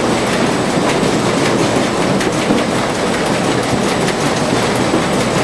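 Six-lane optical tomato sorter-sizer running at very low throughput with few cups filled: a steady, loud mechanical clatter from its cup conveyor, with a dense rattle of small clicks.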